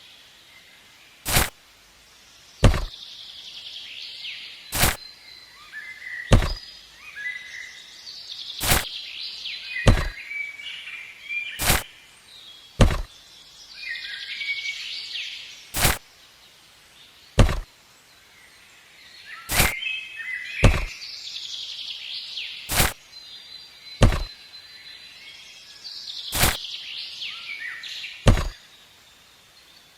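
Sharp knocks or clicks every one to two seconds at an irregular pace, with birds chirping between them.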